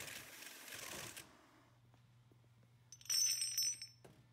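Electric floor grinder running over the floor with a harsh grinding noise that stops abruptly about a second in, leaving a faint hum. About three seconds in, small hard pieces clatter onto a tile floor with a bright, ringing clink that lasts about a second.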